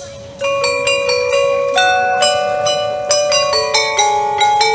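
Background music: a bell-like melody of struck, ringing notes that starts about half a second in.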